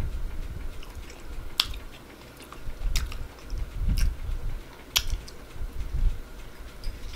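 A person biting into and chewing a Big Mac hamburger close to the microphone, with four sharp clicks about a second apart in the middle.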